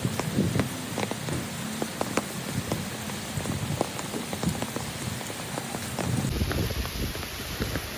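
Rain falling steadily, with many sharp individual drops striking close by.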